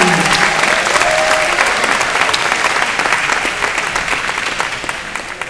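Crowd applauding and cheering at ringside, with one brief cheer about a second in; the clapping dies away steadily.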